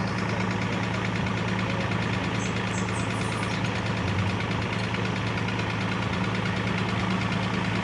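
Engine idling steadily, a constant low hum with no change in speed.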